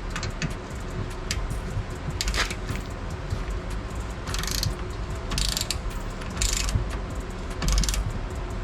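Hand socket ratchet with an extension clicking in short back-and-forth strokes, roughly one burst a second from about halfway through, as it turns a bolt on the front suspension.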